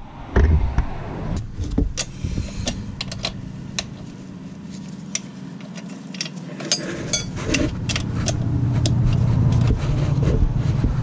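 Wrench and ratchet clicking and clinking on the motorcycle's chain adjuster bolts as they are loosened, in irregular sharp metal clicks. A steady low rumble runs underneath and grows louder in the second half.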